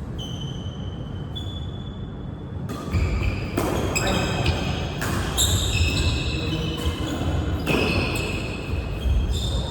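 Court shoes squeaking on an indoor badminton court floor during a rally: many short, high squeaks at shifting pitches overlapping one another. From about three seconds in they come with dull thuds of footwork and the whole thing gets louder.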